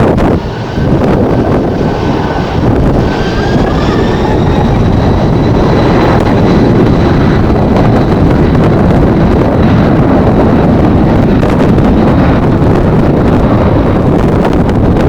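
Strong wind buffeting the microphone over the rumble of a jet airliner's engines. A high engine whine rises in pitch over the first few seconds, then holds steady.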